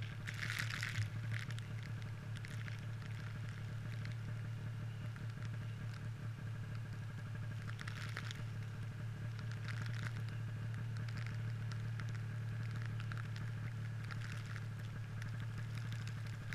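Snowmobile engine idling, a steady low hum, with light scattered crackling ticks over it, heaviest about half a second in and again around eight seconds in.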